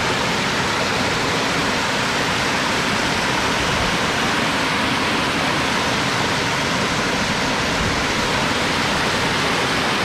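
Small waterfall cascade: white water rushing and splashing down a sloping bare rock face, a steady, even rush of water.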